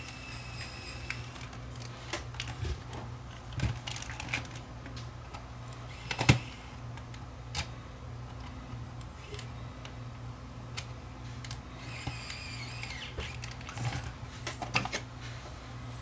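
Small sharp clicks and taps of screws and a screwdriver working on a camcorder's plastic housing during reassembly, with a brief whir of a small electric screwdriver about twelve seconds in.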